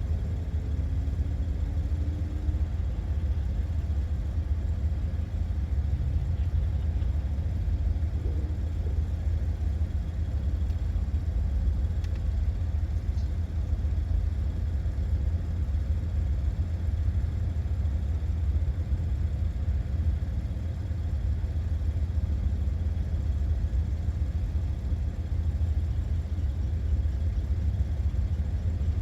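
Porsche 986 Boxster's flat-six engine and road noise on a track lap: a steady low rumble, with a brief rising engine note near the start.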